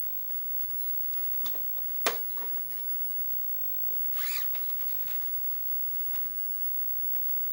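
Clicks and taps of laptop plastic parts being handled during reassembly. One sharp click comes about two seconds in, and a short scraping rustle a little after four seconds.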